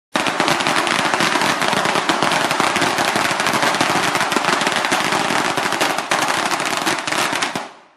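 A long string of firecrackers going off: a dense, continuous rattle of sharp cracks, fading out near the end.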